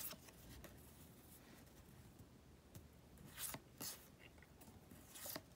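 Faint slides and flicks of paper trading cards being shuffled through by hand, a few short scratchy card sounds over quiet room tone.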